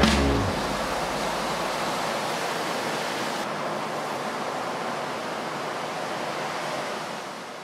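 Ocean surf breaking: a steady, even rush of waves, fading out near the end. A music track ends just after the start.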